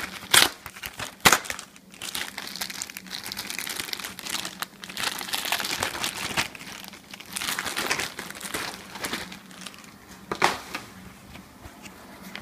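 Clear plastic wrapper crinkling as a Husky central vacuum replacement bag is pulled out and unfolded by hand, with a few sharper crackles in the first couple of seconds and another about ten seconds in.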